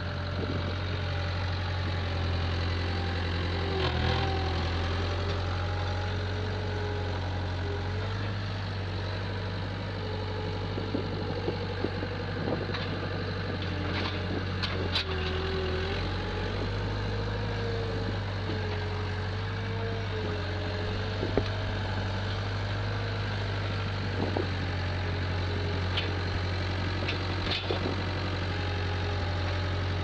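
Gehl skid steer's diesel engine running steadily as the machine carries a round bale and a hay ring on its spear. Over it is a wavering whine, with occasional sharp clanks, mostly in the second half.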